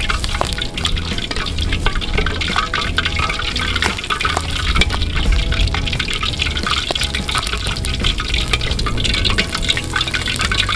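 Hot cooking oil ladled over a pork hock in a wok of deep-frying oil, pouring and sizzling, with many small crackles as it streams back into the wok.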